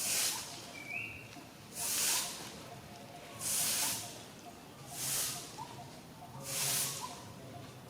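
Insects calling in a rhythmic pulsing hiss: five evenly spaced high buzzy pulses, each about half a second long and about one and a half seconds apart.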